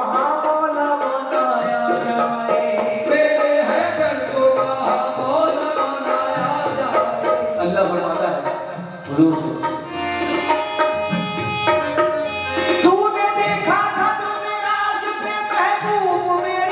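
Qawwali music: harmonium playing held chords and melody with hand-drum rhythm, under the group's singing voices.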